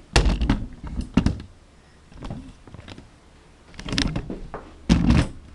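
Irregular clunks, knocks and brief mechanical whirs from a remote-control airsoft gun turret being moved and re-aimed. It is not firing.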